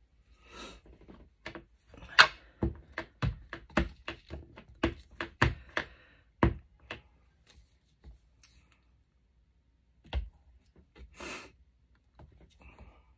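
Handwork on a craft table: about ten sharp taps in a row, roughly two a second, then a few single knocks, with short rubbing or sliding noises near the start and the end.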